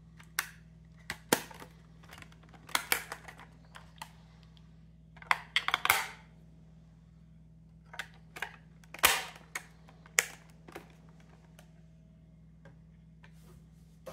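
Irregular plastic clicks and short clattering rattles from a portable CD player's plastic casing being handled and turned over in the hands, with a few louder clusters of clicks.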